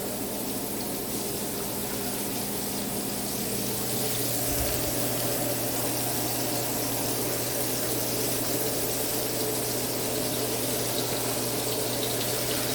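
Turkey burger patties sizzling in a hot skillet as they are laid in. The frying hiss is steady and grows a little louder about four seconds in, over a faint low hum.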